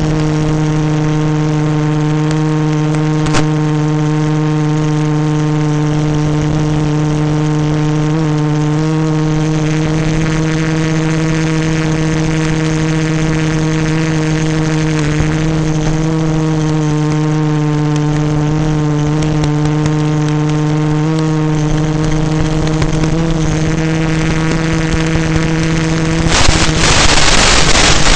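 Multicopter's DJI E600 motors and propellers droning at a steady pitch, with small wobbles as the throttle shifts. Near the end the drone gives way to a loud rushing noise like wind on the microphone.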